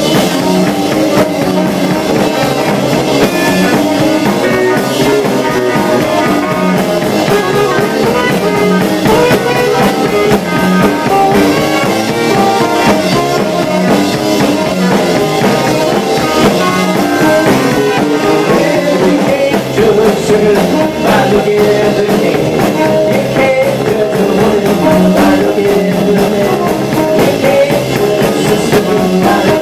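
A live band playing loud amplified music, with electric guitar and a drum kit keeping a steady beat.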